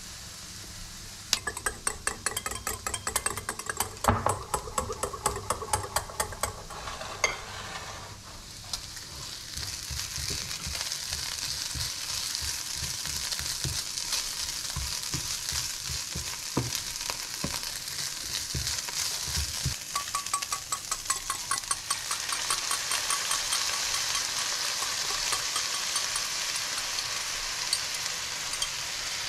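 A utensil clicking rapidly against a ceramic bowl, about ten clicks a second for several seconds, as a tomato sauce is mixed. Then ground beef sizzling steadily in a non-stick frying pan while it is stirred and scraped with a spatula.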